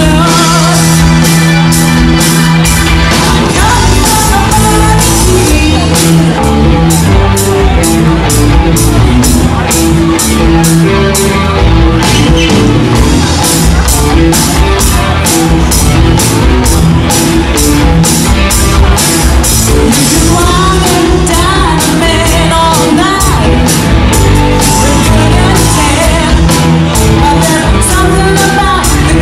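Rock band playing live and loud: a lead singer over electric guitars, bass and a steady drum beat.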